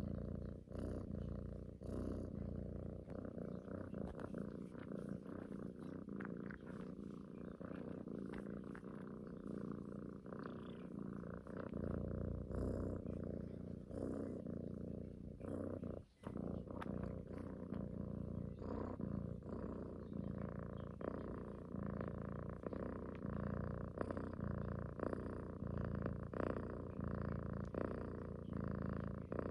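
Domestic cat purring steadily close up, with frequent small clicks over it and one brief break about sixteen seconds in.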